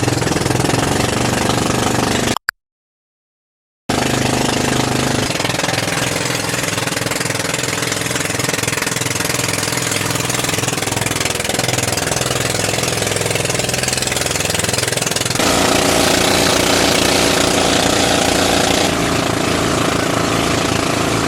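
A motor engine running steadily and loud, its note wavering and shifting, with a brief cut to silence about two and a half seconds in and a change in its note about fifteen seconds in.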